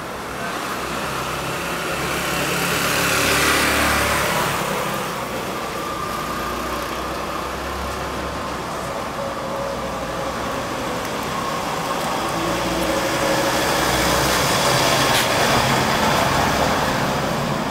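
Street traffic: a motorcycle drives past a few seconds in, its engine swelling and falling in pitch as it goes by. Later a van passes, its engine rising to a second, longer peak near the end.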